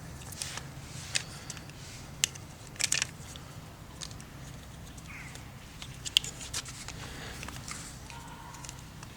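Small plastic grip pieces being handled and tried on a bike lock's frame bracket: scattered light clicks and taps, about half a dozen, over a low steady hum.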